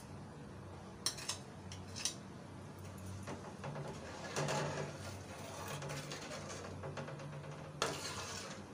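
A bowl clinks against the rim of a metal pot a few times as vermicelli is tipped into milk, then a metal spoon stirs it, scraping and clinking on the pot, with one sharp clink near the end. A low steady hum runs underneath.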